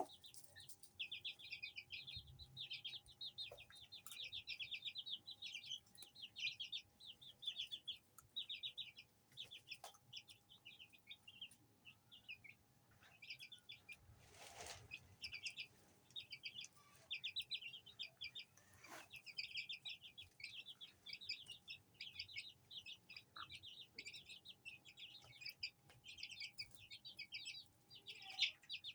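Aseel chicks peeping: rapid runs of short, high chirps in near-continuous bursts. A brief noise sounds about halfway through.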